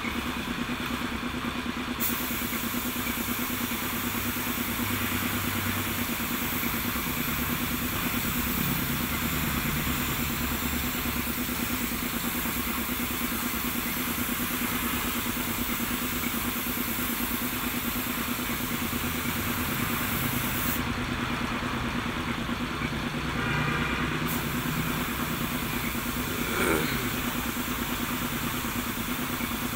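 Paint spray gun hissing as it sprays paint onto a steel frame, over the steady running of the air compressor that feeds it. The spray hiss stops for about two seconds at the start and again for a few seconds past the middle while the compressor keeps running, and there is one short knock near the end.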